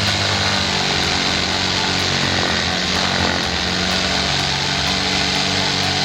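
Electric power tool running steadily under load.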